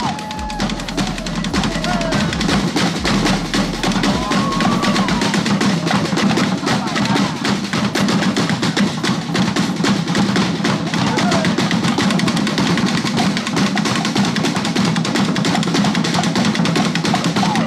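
Live drumming by a Polynesian fire-show drum group, several drummers playing a rapid, continuous rhythm on hand drums and a large bass drum.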